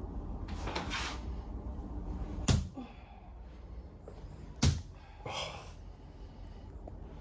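Two heavy thumping blows struck by hand on a patient's body during a percussive chiropractic treatment, about two seconds apart. A soft hissing noise comes about a second in, and another just after the second blow.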